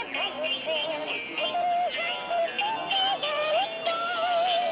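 Music with a high singing voice holding wavering notes and sliding between them.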